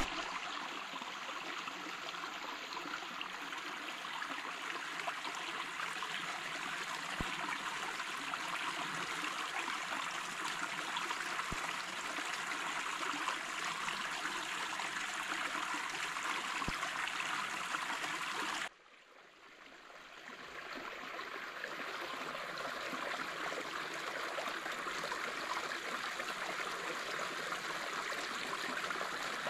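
Small rocky stream flowing and trickling steadily over stones. About two-thirds of the way through the sound cuts out abruptly and fades back up over a couple of seconds.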